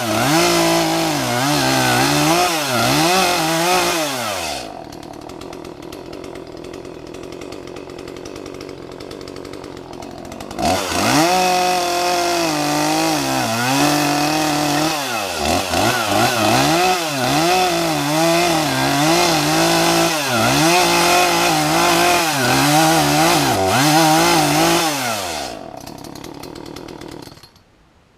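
Chainsaw running at high revs, its pitch repeatedly dipping and rising as it cuts. It drops back to a quieter idle about four and a half seconds in, revs up again about ten seconds in, then winds down and stops near the end.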